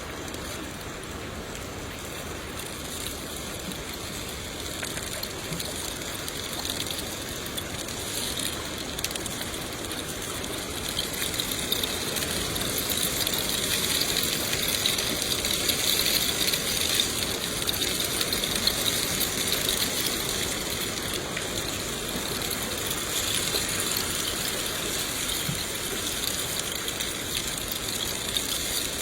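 Rain falling steadily, a dense hiss of countless drops, growing heavier about a third of the way in and easing slightly near the end.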